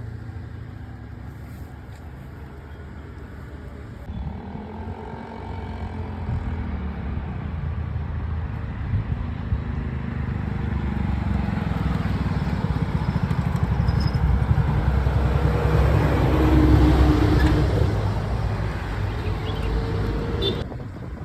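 A motor vehicle's engine running, growing louder to a peak about three-quarters of the way through, then easing off.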